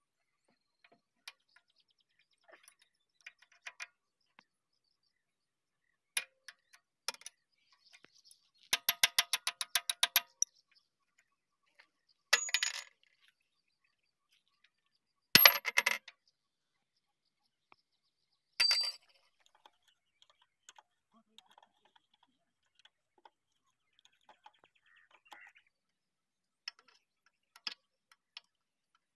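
Steel spanners clinking against the bolts and bucket of a JCB 3DX backhoe's bucket pin, as the bolts are worked. Scattered light clicks, then a quick run of about a dozen clinks, then three louder metal clanks that ring briefly.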